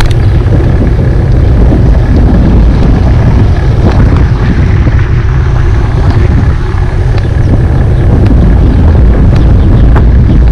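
Wind buffeting the microphone of a camera riding on a moving recumbent trike: a loud, steady low rumble, with a few light clicks and rattles.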